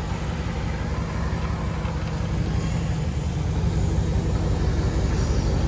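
Dodge Charger Scat Pack's 6.4L (392) HEMI V8 running through a dual exhaust whose mid mufflers have been replaced with straight 3-inch pipe: a deep, steady rumble that grows gradually louder.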